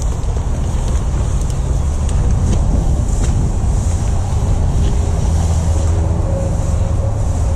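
Wind rumbling steadily on the camera microphone, with tall grass swishing against it as the wearer pushes through on foot.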